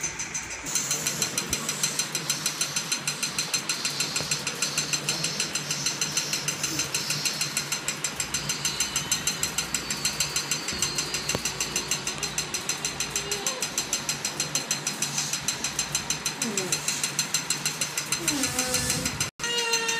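Rapid, even clicking rattle over a low steady hum; it cuts out for an instant near the end.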